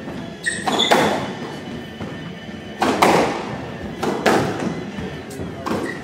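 Squash rally: the ball is struck by rackets and smacks off the court walls, several sharp hits about a second or more apart, with brief shoe squeaks on the wooden floor.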